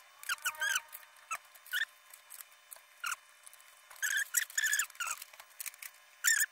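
Short, high-pitched animal chirps and squeaks, coming in irregular clusters with gaps between them.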